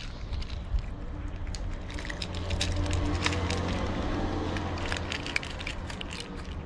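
A cat crunching dry kibble from a dish: a quick, uneven run of small crisp crunches. Under it a low hum swells in the middle and fades again.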